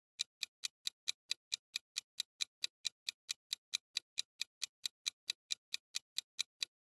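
Countdown-timer sound effect: a steady clock-like ticking, about four to five sharp ticks a second, marking the time left to answer the quiz. It stops just before the end.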